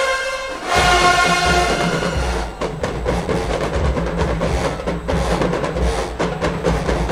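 Marching band playing loudly: the horns hold a chord, then about two and a half seconds in the drumline takes over with a fast, driving beat.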